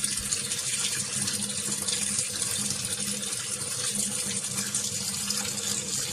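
Tap water running steadily as washing-machine parts are rinsed under it.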